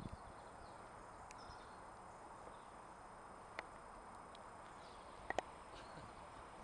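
Quiet outdoor ambience with faint bird chirps, broken by a few short sharp clicks, one about halfway through and two close together later on.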